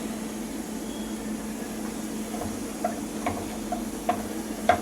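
Onion and grated coconut sautéing in a pan under a steady low hum, with a few light spatula taps against the pan in the second half.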